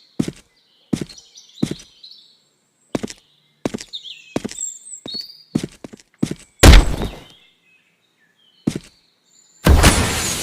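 Cartoon fight sound effects: a run of sharp hits with short high chirps between them. A heavier blow comes past the middle, and a loud blast near the end rings on.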